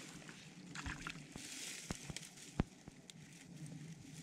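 Faint rustling and handling among wet reeds at the water's edge, with light water sloshing and a few sharp clicks, the loudest about two and a half seconds in, as a small bass is drawn out of the water by hand.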